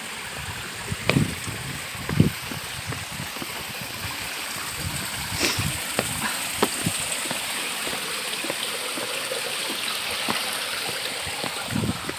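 Shallow mountain stream running over rocks, a steady rushing trickle. A few low thumps and knocks sound over it, the loudest about one and two seconds in and near the end.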